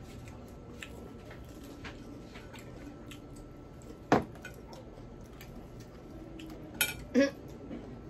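Tableware clatter while eating: light clicks and taps of wooden skewers, drinking glasses and a plate on a wooden table, with one sharp knock about four seconds in and two more near the end.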